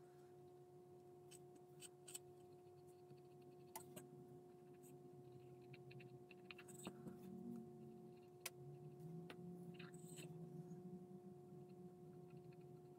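Near silence: a steady faint electrical hum, with scattered faint small clicks and taps from handling a paintbrush and paint pot.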